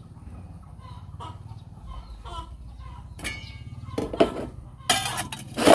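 Chickens clucking several times, loudest near the end.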